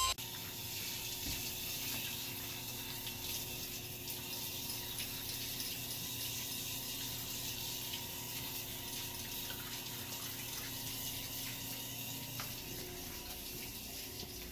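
Water running steadily from a handheld sprayer hose in a tub, spraying onto a dog's coat; the hiss tails off near the end.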